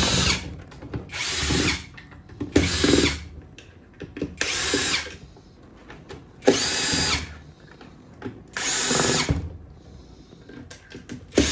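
Power drill-driver with a T20 bit backing out the box-lid screws one at a time: about six short whirs, each under a second, with small clicks and taps between them.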